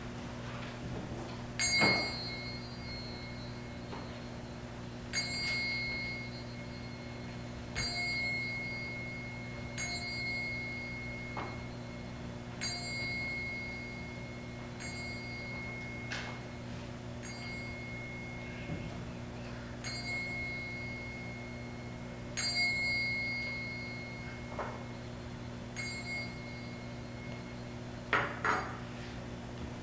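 A bell struck about eleven times, roughly every two to three seconds, each stroke ringing out and fading over a second or two, over a steady low hum. A few knocks and rustles come near the end.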